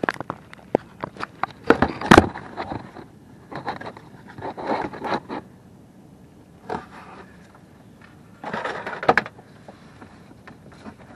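Clicks, knocks and scraping from hands working under a car around the oil filter, with the sharpest knock about two seconds in and a few short rustling, scraping stretches later.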